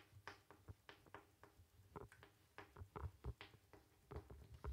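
Chalk writing on a blackboard: faint, quick, irregular taps and scrapes of the chalk stick against the board.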